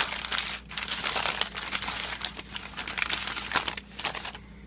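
Game packaging crinkling and rustling as it is handled and opened by hand, with a dense run of irregular crackles that dies away shortly before the end.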